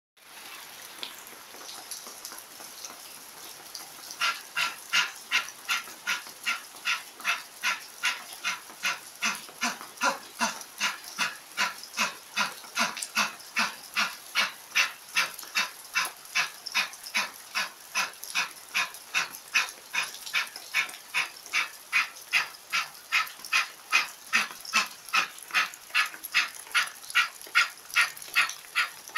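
Fire-breath (pranayama) breathing: forceful, rhythmic breaths at about two a second, starting about four seconds in, over a steady hiss of rain.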